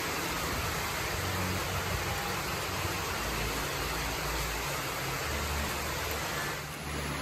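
Heavy rain falling steadily, a dense even hiss, with uneven low rumbles of wind on the microphone. A faint kart engine drones under it for a few seconds midway.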